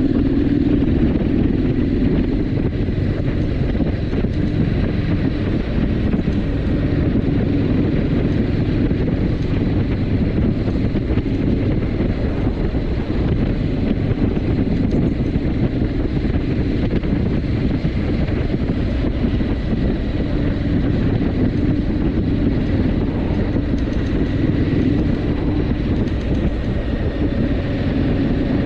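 Triumph Scrambler 900's parallel-twin engine running steadily while cruising at speed, under a constant rush of wind and road noise.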